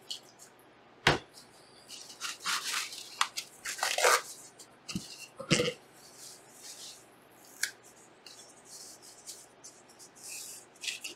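A paper towel rustling and rubbing in short, uneven strokes as a graphics card is wiped clean. Three sharp knocks come about a second in, about five and a half seconds in, and, fainter, near the middle.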